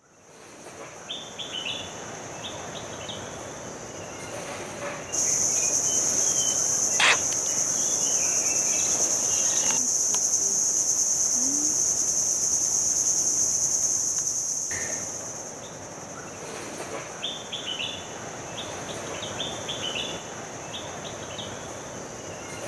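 A shrill, steady insect drone that starts abruptly about five seconds in and fades out about ten seconds later, with a fainter drone and birds chirping around it. There is a single sharp click about seven seconds in.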